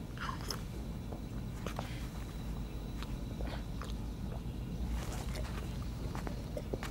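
People drinking from small glasses and eating at a table: faint mouth sounds of sipping and chewing and a few small clicks, over a steady low hum.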